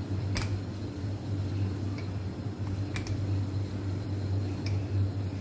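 A steady low mechanical hum, with four light clicks as a wooden rolling pin rolls out the stuffed paratha dough on the counter.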